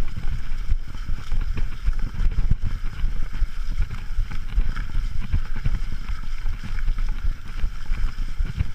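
Wind buffeting the microphone of a handlebar-mounted camera on a moving mountain bike, with the rumble and rattle of the bike rolling over a leaf-covered dirt trail.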